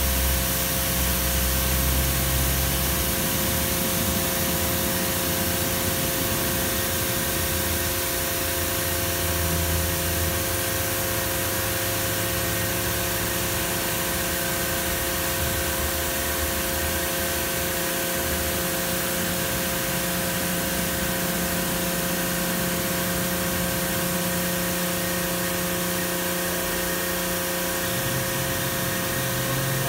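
Kärcher CBC gantry car wash spraying high-pressure water jets onto a car: a steady hiss of spray over the steady whine of the wash's pump and motors.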